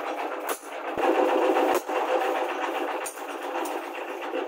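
Hand hammer striking a rebar knife blade on a cylindrical anvil, about five sharp blows at uneven spacing, under a steady background hum with two held tones.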